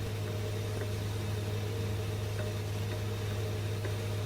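Steady low electrical hum with hiss over it, the background noise of an old recording, with no speech.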